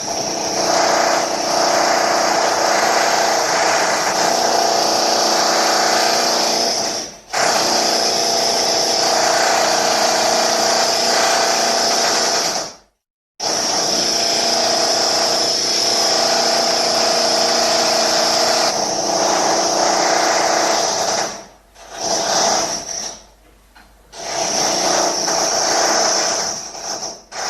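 Electric drill running at a steady speed with a constant whine. It stops briefly twice, about 7 and 13 seconds in, then runs in shorter bursts with pauses near the end.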